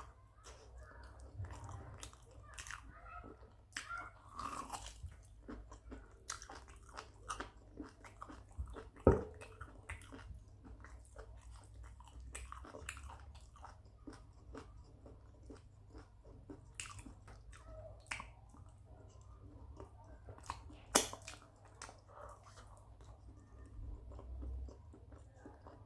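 A person chewing and biting food close to the microphone, with irregular wet mouth smacks and small crunches. Two sharp clicks stand out above the chewing, about a third of the way in and again about four-fifths of the way in.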